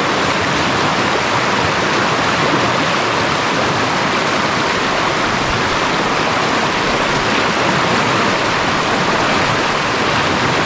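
Steady, loud rush of flowing river water, like a stream running over rapids.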